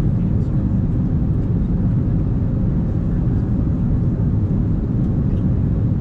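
Steady low drone of an Airbus A380's engines and cabin, unchanging, with a faint steady hum and a few light ticks.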